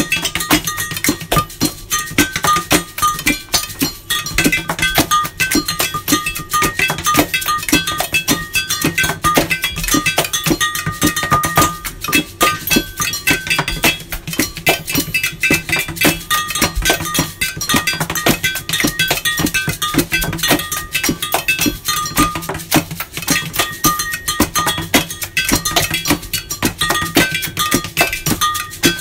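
Layered home-made percussion groove played on kitchen objects and the body: clinks and taps on glass jugs and bowls, a brush scraped on a plastic bottle, paper shaken, and hands rubbed and clapped, all in a steady, busy rhythm with a few bright ringing notes from the glass.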